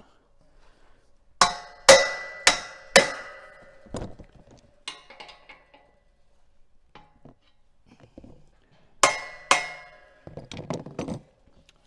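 A hammer knocking the cams of a cam-lock gate hinge on, locking the hinge onto the post pipe. There are four ringing metallic strikes about half a second apart, a few lighter taps, then two more strikes near the end.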